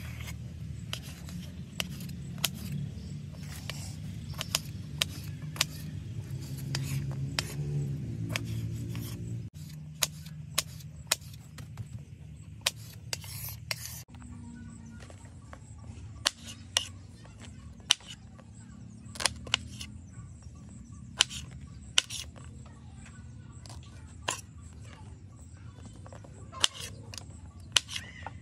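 Kitchen knife chopping tomatoes on a wooden cutting board: sharp, separate knocks of the blade striking the board at an uneven pace.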